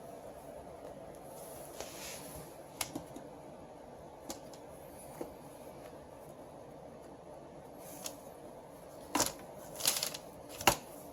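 Parts of a copier fuser unit being handled and taken apart: scattered sharp clicks and clatters of plastic and metal, with three louder ones near the end, over a steady low hum.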